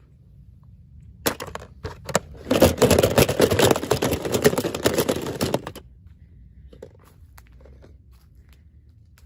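Toy packaging being crinkled and torn open by hand: a dense crackling rustle that starts about a second in and stops abruptly near six seconds.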